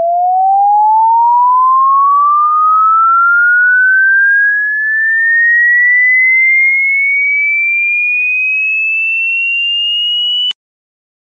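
A single pure electronic tone rising steadily in pitch for about ten seconds, from low to high, then cutting off suddenly: an edited-in tension-building riser sound effect.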